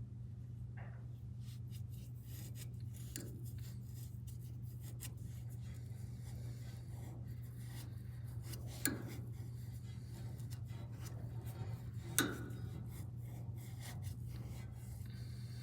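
Faint rubbing and handling sounds at the gas hose fittings during a leak check, with two sharp clicks about nine and twelve seconds in, over a steady low hum.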